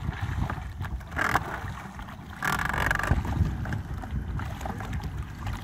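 Wind buffeting the microphone, a steady low rumble, with two short brighter noises about a second in and again around two and a half seconds in.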